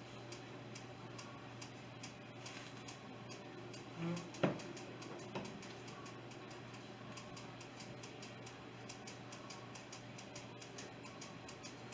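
Faint, rapid, even ticking, with a single sharp click about four and a half seconds in.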